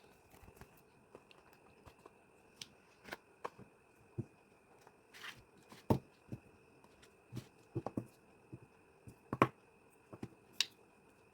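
Irregular clicks and taps from hands handling small cosmetic products and their packaging, with the loudest click about nine seconds in; a faint steady high whine runs underneath.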